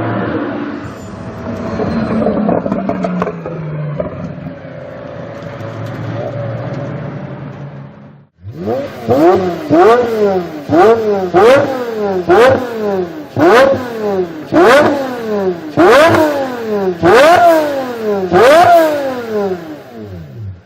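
Pagani Huayra BC's twin-turbo V12 running with wavering pitch, then, after a cut, being blipped a dozen or so times in quick succession, each rev rising and falling in about a second, several ending in a sharp crack.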